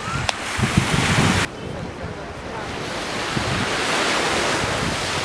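Surf washing onto a beach with wind buffeting the microphone. The sound cuts abruptly about one and a half seconds in, then the wash of the waves swells louder again.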